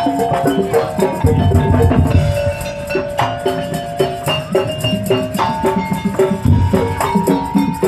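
Madurese daul music: a fast, dense percussion rhythm under a held melody line, with heavy low drum booms about a second in and again near the end.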